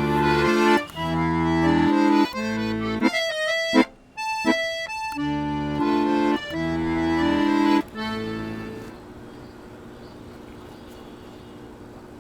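Background score music with sustained chords under a melody, stopping about eight to nine seconds in; after it, a quiet steady hum of room tone.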